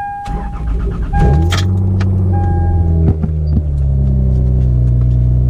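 Lexus IS300's 2JZ-GE inline-six cranked on the starter and catching on a cold start about a second in. It flares up, then settles into a steady fast idle. A repeated beep sounds over the first couple of seconds. The owner says this engine has a rod knock.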